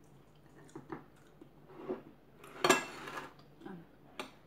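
Spoon and ceramic dishes clinking and scraping as food is eaten: a few light taps, then a louder clatter with a brief ring about two and a half seconds in, and a last click near the end.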